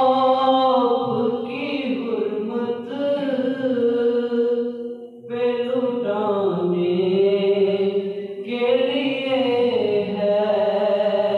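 A man's voice in melodic Islamic recitation, amplified through a microphone, holding long ornamented phrases with a short breath about five seconds in.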